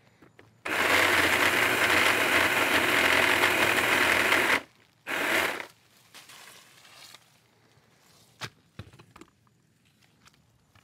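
Battery-powered pole saw running and cutting through a tree limb for about four seconds, followed by a second short burst of cutting. The cut branch then comes down with a rustle of leaves, and a few light knocks follow.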